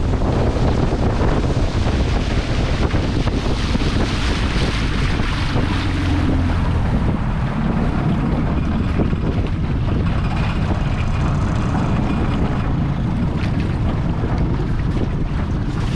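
1963 Evinrude Big Twin 40 hp two-cylinder two-stroke outboard running steadily with the boat under way, under a steady rush of wind on the microphone and water against the aluminium hull.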